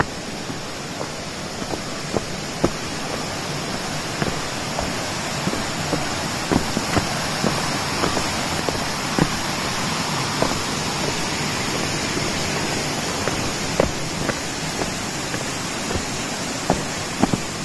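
Steady rushing of a nearby waterfall, with scattered footsteps on the path.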